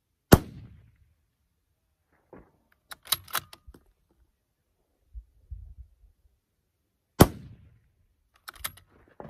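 Two shots from a suppressed 6mm Creedmoor bolt-action rifle, about seven seconds apart. Each is a sharp crack with a short fading tail. After each shot comes a quick cluster of metallic clicks and clacks as the action is cycled to extract the brass and chamber the next round.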